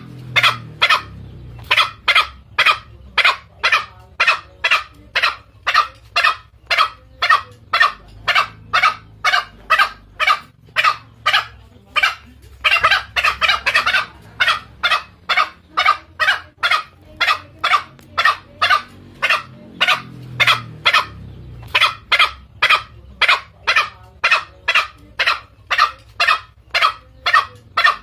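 Green junglefowl calls used as a hunting lure. Short calls repeat about twice a second, with a quicker run of calls a little under halfway through.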